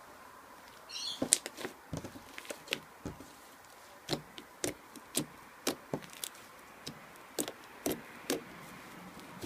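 Ice slime being squeezed and stretched by hand, giving an irregular run of sharp clicking pops.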